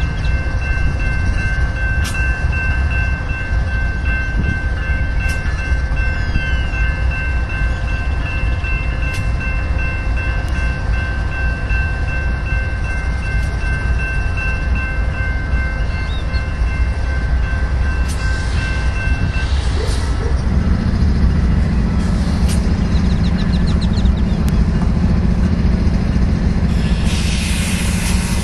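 BNSF intermodal freight train rolling past at a grade crossing: a steady low rumble of wheels on rail, with a high steady ringing tone that stops about two-thirds of the way through. Near the end a road vehicle's engine hum and a brief hiss join in.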